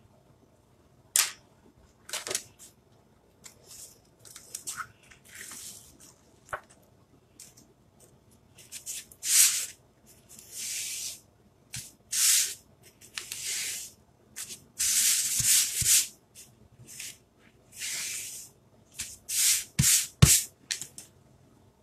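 Hands rubbing and smoothing an adhesive stencil transfer flat. It is a run of about a dozen rubbing swishes, some short and some about a second long, with a sharp tap near the end.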